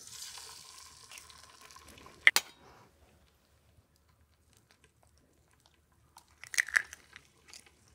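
A hen's egg cracked against a knife blade: one sharp crack about two seconds in, then a few small crunching clicks of the broken shell being handled near the end.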